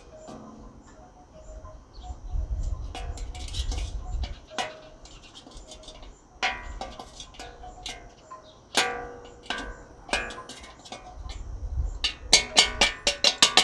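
Hand tools clinking and knocking against a mini bike's front fender bolt and frame, scattered metal taps with a short ring, then a fast run of ringing metal taps near the end as caked dirt is knocked off the bolt.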